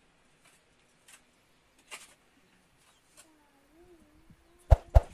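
Hands scraping and scooping loose dirt and stones on a rocky cave floor in a few short scratchy strokes, then two sharp, loud knocks near the end as stones or debris strike the metal bucket. A faint wavering tone runs beneath from a little past halfway.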